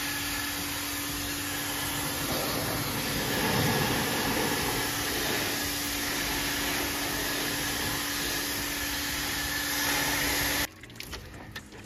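High-pressure water washer running steadily, its motor giving a constant hum under the hiss of the water jet spraying the AC outdoor unit's metal casing. It cuts off suddenly near the end.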